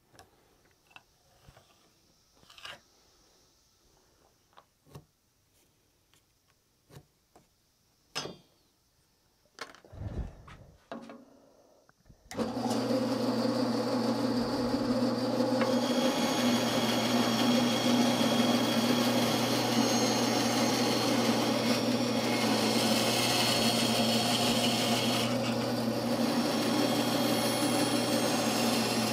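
Scattered light taps and scrapes for about twelve seconds, then a bandsaw switches on suddenly and runs steadily, cutting the kerf for the wedge into a cocobolo axe handle.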